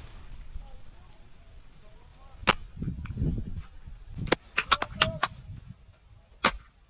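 Airsoft guns firing: sharp snapping shots, a single one, then a quick string of about six in a second, then one more near the end.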